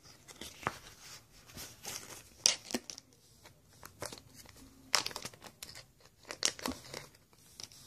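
Crinkling, rustling handling noise with scattered light clicks as a new fishing-reel bearing is picked up and taken out of its packaging.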